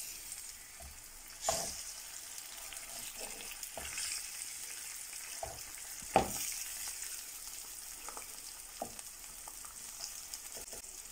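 Eggs and onions sizzling in a frying pan while a wooden spatula stirs and scrapes through them, with a few short knocks of the spatula against the pan, the loudest about six seconds in.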